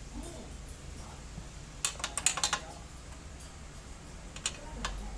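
Sharp metallic clicks and clinks of hand tools and small metal parts being handled, a quick cluster of about half a dozen about two seconds in and two more near the end, over a low steady hum.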